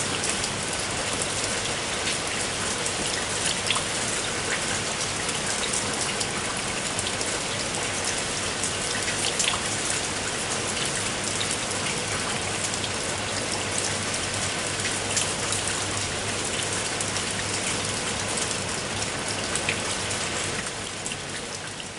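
Steady rain falling, with many distinct drops striking a surface; it begins to fade out near the end.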